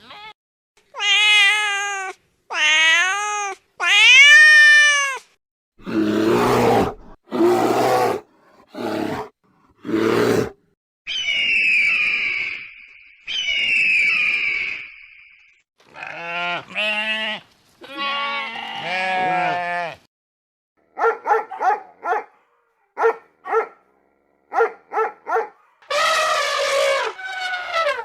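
A string of different animal calls with short gaps between them: pitched calls in the first few seconds, harsher noisy calls around the middle, then two high, steady calls, and a run of quick, short calls near the end.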